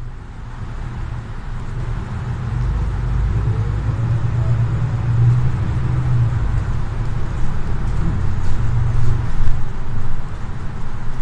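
Low rumble of an articulated Solaris Urbino 18 city bus's Euro 6 diesel engine and drivetrain, heard from inside the passenger cabin as the bus drives, growing louder over the first few seconds and then holding steady.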